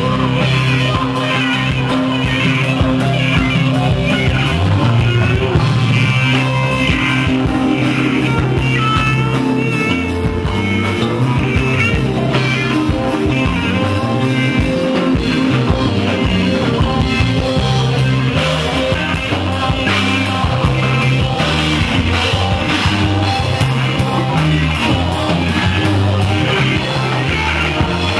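Live rock band jamming: electric guitars over electric bass and drums, playing without a break.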